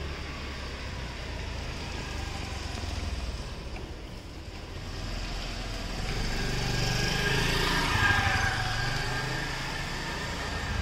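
Street traffic noise: a motor vehicle's engine running steadily, growing louder about six seconds in.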